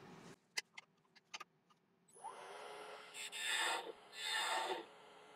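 A few light clicks, then a wood lathe starts about two seconds in with a steady motor whine. A gouge makes two short cuts across the end grain of a spinning ash blank, facing and cleaning up the end.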